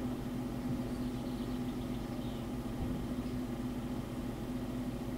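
Steady low hum of a desktop computer running under a heavy rendering load, with one steady low tone through it. A few faint keyboard taps come in the first half.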